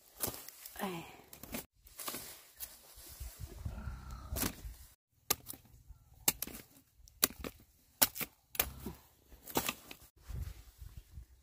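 Machete chopping through the stalk of a bunch of green bananas as the hands are cut and broken off: a series of sharp cracks, roughly one a second, with the bananas rustling between them.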